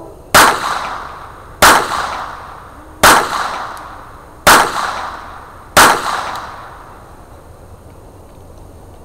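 Five unsuppressed shots from a Walther P22 .22 LR pistol, fired about one and a half seconds apart, each a sharp crack with a short echo.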